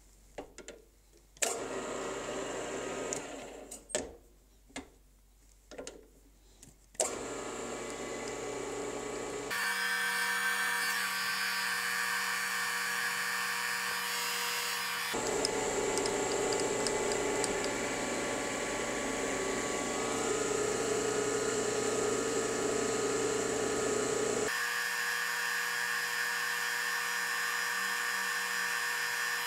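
A few sharp clicks and knocks of the milling machine being handled and set. Then, about seven seconds in, the milling machine starts running steadily with a steady motor whine, its spindle turning a 3/16-inch end mill. The tone of the running shifts abruptly a few times.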